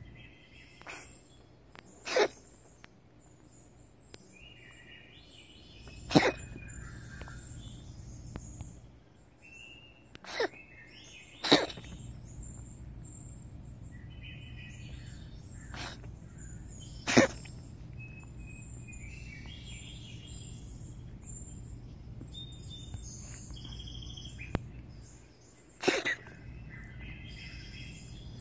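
A cat coughs in about six short, sharp single bursts, spaced several seconds apart. Birds chirp in the background.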